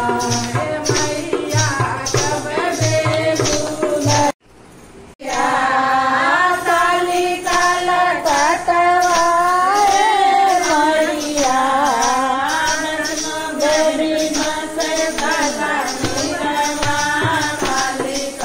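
Devotional Hindi bhajan: a sung melody over a steady jingling, rattle-like percussion beat. About four seconds in the music cuts out for about a second, then the singing resumes.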